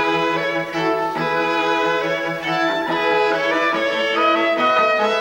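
Background film score of bowed strings: a violin melody moving over a held low note.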